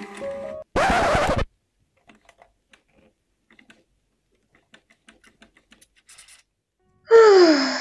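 A short, harsh buzzer-like burst about a second in, then faint scattered clicks and scratches. Near the end comes a loud tone sliding down in pitch, an edited-in 'fail' sound effect marking a failed attempt.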